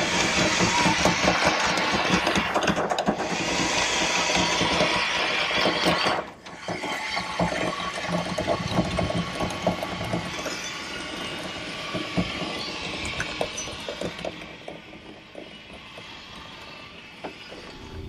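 Anchor windlass hauling in the anchor chain, the links rattling and clanking over the gypsy in a rapid run of clicks. It breaks off suddenly about six seconds in, then goes on more quietly and fades near the end.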